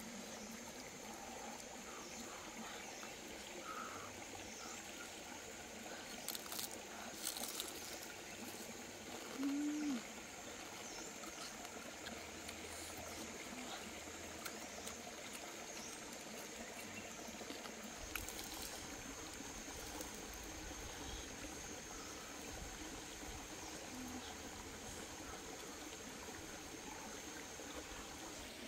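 Steady trickle of a small stream, under a thin, steady high whine. A few faint clicks come a third of the way in, then a short low hum of about half a second.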